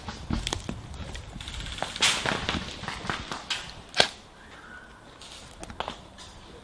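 Airsoft guns firing in sharp, irregular snaps over rustling noise, the loudest single crack about four seconds in.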